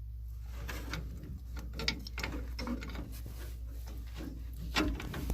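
Scattered clicks, scrapes and knocks of tools and hands at work on a water pipe fitting, with a sharp knock about two seconds in and a louder one near the end, over a steady low hum.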